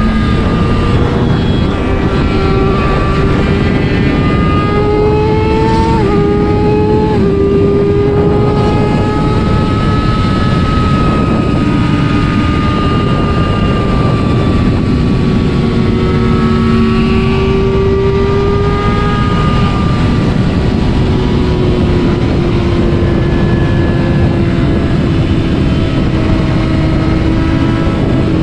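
Honda CBR600RR's inline-four engine running hard at highway speed under heavy wind rush. The engine note drops sharply twice in quick succession about six and seven seconds in as the bike shifts up. It then holds a high, steady note that slowly rises and falls.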